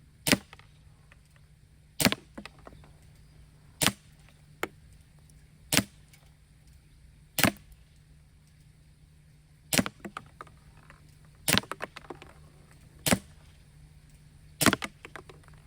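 Umarex Walther P99 CO2 blowback airsoft pistol firing single shots, nine sharp cracks about one every two seconds, some followed by a smaller click.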